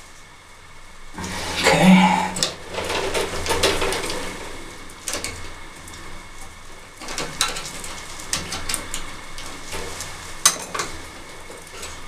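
Hands working the wiring and metal terminals of a well pump pressure switch. Rustling and scraping start about a second in and are busiest for the next few seconds, with scattered metallic clicks and clinks and one sharp click near the end.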